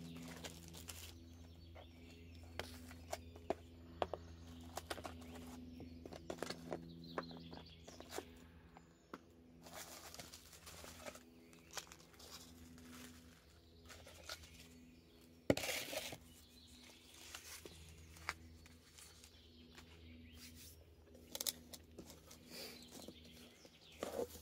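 Food containers and wrappings being handled on a table: scattered light clicks and knocks with short crinkling rustles, one louder knock about halfway through. Birds chirp faintly in the background.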